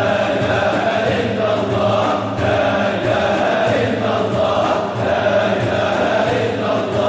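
A large group of men chanting Sufi dhikr together in unison, with the repeated phrase swelling and dipping at a steady pace.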